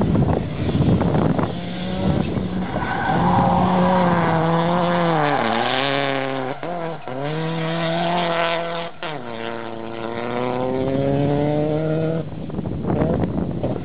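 Mitsubishi Lancer Evolution VIII rally car's turbocharged four-cylinder engine worked hard as the car slides and accelerates, with tyre and grit noise under it. The revs fall about five seconds in, the note breaks off sharply a few times around seven and nine seconds, then rises steadily again as the car pulls away.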